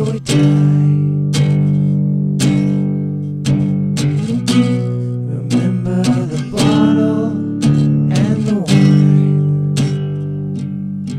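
Background music: a guitar song with chords strummed about once a second over a steady bass.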